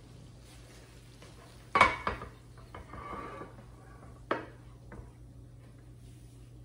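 A spatula scraping and knocking against a frying pan as meat filling is scraped out of it into a baking dish. There are a few sharp clacks, the loudest about two seconds in and another about four seconds in, with scraping between them.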